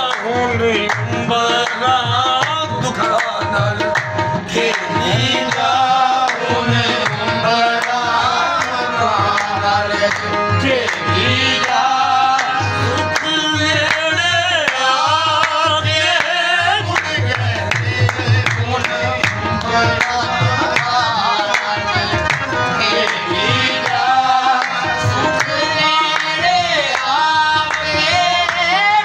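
Qawwali performance: sung vocals by the lead and chorus over two harmoniums, with a hand drum and rhythmic hand-clapping keeping the beat.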